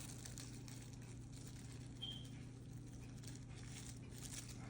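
Faint steady low hum, with a short high-pitched chirp about two seconds in.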